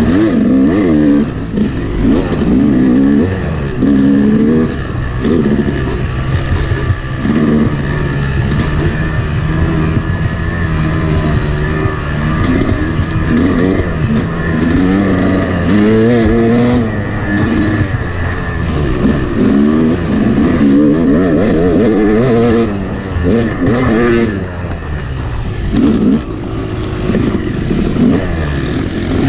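Yamaha YZ250 two-stroke dirt bike being ridden hard, its engine revving up and dropping back again and again as the throttle is opened and rolled off.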